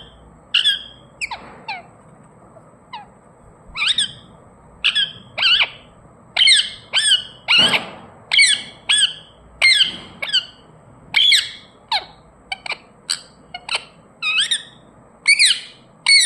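Ringneck parrot calling over and over: short, high calls in quick succession, about two a second, many bending downward in pitch, with a brief lull about two seconds in.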